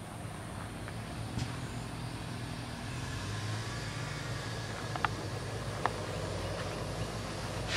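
Low, steady engine hum, growing a little louder about three seconds in, with two short clicks about five and six seconds in.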